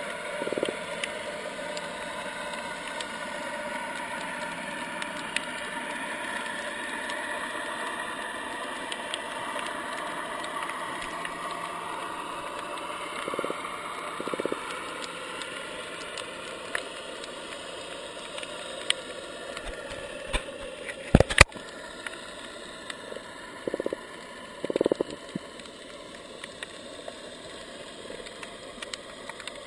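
Steady underwater noise with a faint engine-like hum that slowly fades, a few short bursts, and one sharp click about two-thirds of the way in, the loudest sound.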